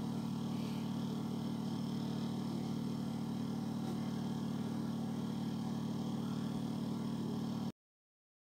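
Steady low mechanical hum with no change in pitch or level, cutting off suddenly near the end.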